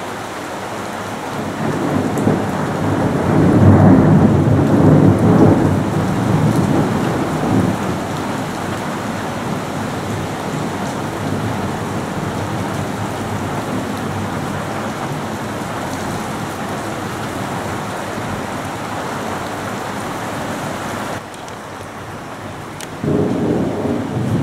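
Thunderstorm: steady heavy rain with a roll of thunder that swells about two seconds in, is loudest a few seconds later and rumbles away over several seconds. Near the end the sound drops suddenly, then a further low rumble rises.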